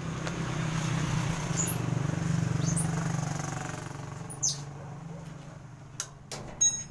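A motor vehicle's engine hum that grows louder and then fades over the first few seconds, as a vehicle passing by. Birds chirp briefly a few times, and a few sharp metallic clinks come near the end.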